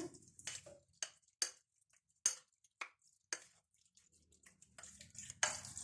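Metal spoon clicking and scraping against a bowl while stirring chicken in a wet spice marinade: a handful of soft, irregular clicks, each a short knock.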